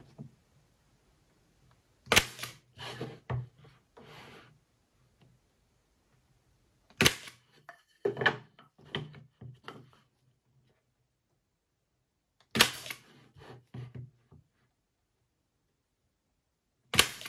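Staple gun driving staples into pine Layens frame bars, where the staples will guide the frame wire: four sharp snaps about five seconds apart, each followed by a few softer knocks.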